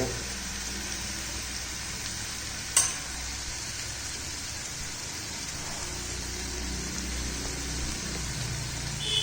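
Onion-tomato masala with ground spices sizzling steadily in hot oil in a kadhai while the spices are being roasted, with a single sharp knock about three seconds in.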